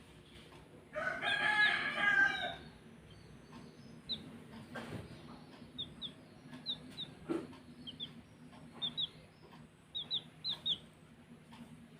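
A rooster crows once, a loud call of under two seconds about a second in. Then baby chicks peep in short, high, falling chirps, often in pairs, with a couple of faint knocks among them.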